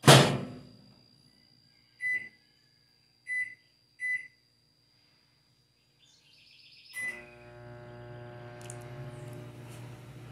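Microwave oven door shut with a knock, then three short keypad beeps as the time is set and a fourth beep about seven seconds in. The oven then starts running with a steady low hum, heating a mug of milk.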